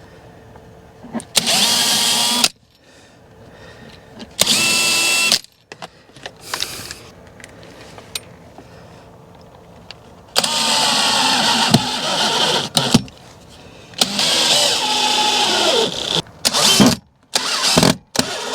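Power drill running in four short bursts, two brief and two of a couple of seconds each. Its motor whine sinks in pitch under load as it pre-drills screw holes with a centering bit.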